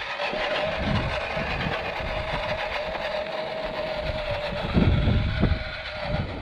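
Electric 1/10-scale RC crawler's motor and gearbox whining at a steady pitch as it drives along the trail, with a burst of low rumble about five seconds in.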